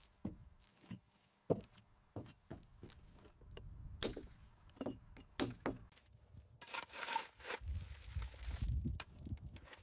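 Irregular wooden knocks and thuds from hand-tool work, with a brief scraping rustle about seven seconds in and a low rumble just after it.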